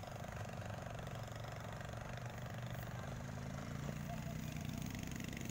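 A steady hum of an engine running, with an even pulse and no change in pitch.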